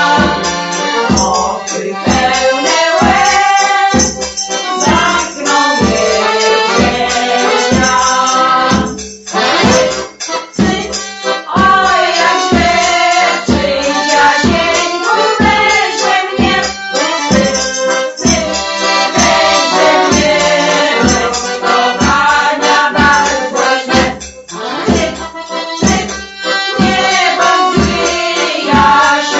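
Polish folk band music: an accordion playing with women's voices singing, over a steady beat.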